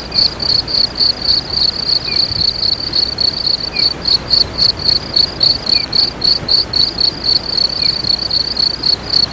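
Insects chirping in a steady, rapid pulsing rhythm, about four pulses a second, with a few faint short chirps every couple of seconds.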